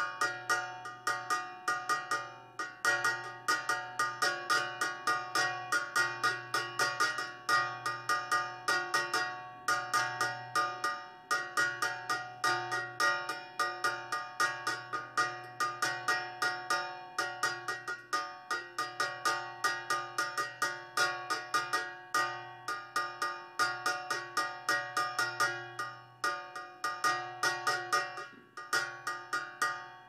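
Background music of quickly repeated ringing struck notes, about four a second, each note dying away before the next.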